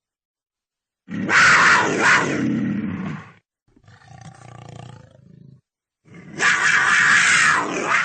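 Cougar calling: two loud, harsh calls of about two seconds each, with a fainter, lower call between them.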